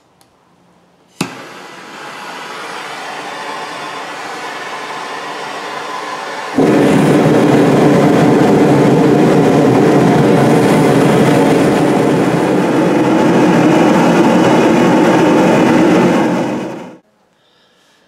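Homemade propane burner fed at about 20 psi being lit with a hand torch. A click is followed by a hiss that rises for about five seconds; then the burner catches with a sudden jump to a loud, steady rushing flame, which runs about ten seconds and cuts off abruptly.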